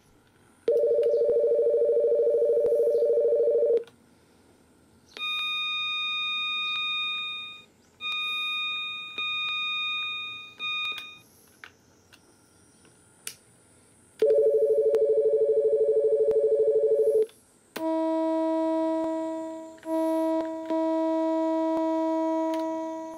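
Synthesized electronic sound effects from a homemade microcontroller PWM model-train power pack: a steady buzzer tone about a second in lasting about three seconds, then several bell-like electronic chime tones that fade away, the buzzer again, and near the end two longer, lower electronic tones that fade out.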